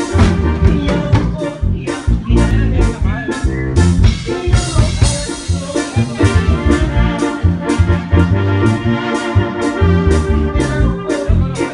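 Live band playing an instrumental Latin passage: an electronic keyboard in an organ voice carries the tune over a drum kit's steady beat.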